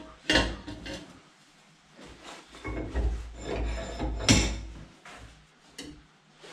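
A metal tube being handled on a workbench: irregular knocks, rubs and scrapes, the loudest about four seconds in.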